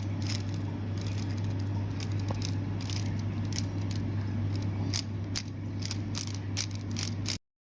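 Plastic Lego Technic pieces clicking and rattling as they are handled and pressed together, a quick irregular run of sharp clicks over a steady low hum. It all cuts off suddenly near the end.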